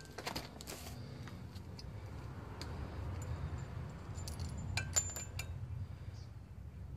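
Small metal parts clinking and tapping as screws and a tool are handled at a rusty brake disc and hub, with a cluster of clinks about five seconds in, over a low steady rumble.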